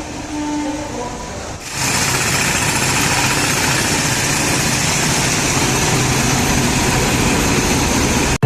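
Running noise of a moving express train: a quieter steady hum, then about two seconds in an abrupt jump to a loud, even rush of wheels on the rails that holds steady.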